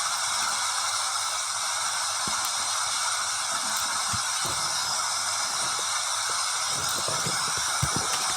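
Steady hiss like static, with a few faint low knocks near the end.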